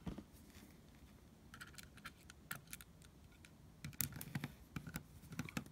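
Faint light clicks and taps of a screwdriver and small screws against a butane torch's metal head as the screws are started by hand. The clicks come more often in the last couple of seconds.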